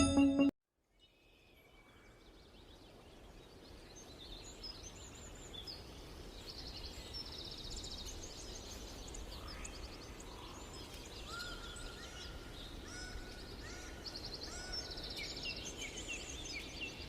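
Birds calling outdoors, fading in after a brief silence: many high chirps and rapid trills from several birds, with a short whistled note repeated a few times midway, over a low steady background rumble.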